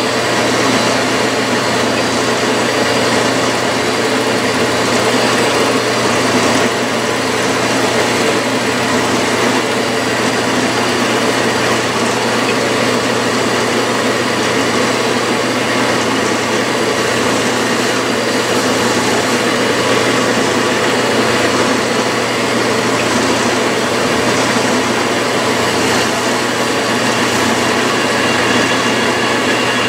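Toolpost grinder running on a lathe, its belt-driven wheel grinding the hardened jaws of a spinning three-jaw chuck from the inside to true up jaws that had become bell-mouthed. A steady machine noise with a low hum and several steady high tones.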